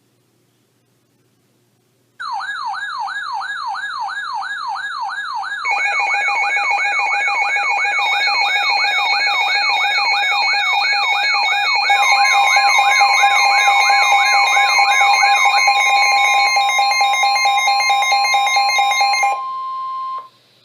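Weather-alert alarm tones. After about two seconds, a loud sweeping siren whoop starts, rising and falling a little under three times a second. Steady tones layer over it partway through, and a steady warning alert tone comes in near the middle. That alert tone is left alone briefly near the end, then cuts off.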